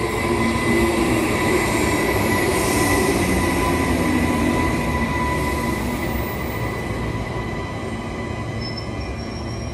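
Queensland Rail electric commuter train running past close by: steady wheel-on-rail rumble with a high, even whine over it, loudest in the first few seconds and easing gradually as the carriages go by.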